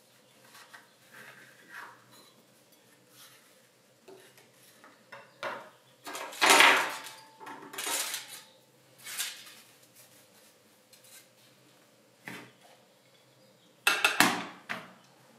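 A metal spoon and knife clinking and scraping against a ceramic plate, foil pie tin and metal tray as a baked pot pie is turned out of its tin and its crust is cut. Light scattered clicks, with a loud clatter about six seconds in, a few more around eight to nine seconds, and another loud clatter near the end.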